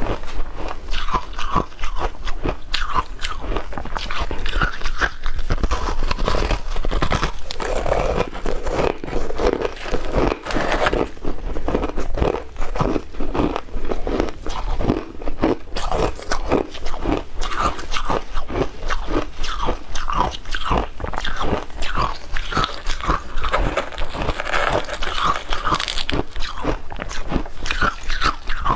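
A person biting into and chewing powder-coated chunks of frozen ice: a dense, rapid crackle of crunches.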